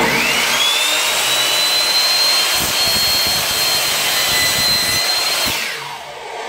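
Skil 3316 10-inch compound miter saw starting up with a rising whine, held at full speed while the blade is lowered through a piece of compressed-cardboard trim, then released about five and a half seconds in and winding down.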